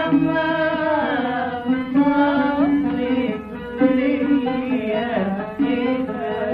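Old recording of a classical Egyptian Arabic song: an ensemble with strings plays ornamented melodic lines with wavering tones and gliding slides, over a sustained lower drone-like part.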